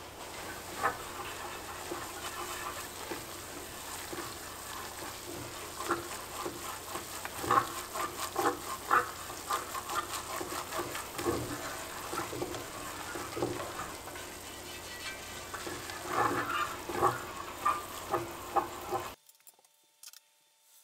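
A wire whisk scraping and tapping against an enameled cast-iron pot as flour is whisked into sizzling brown butter to make a roux. A steady sizzle runs under the quick whisk strokes. The sound drops to near silence about two seconds before the end.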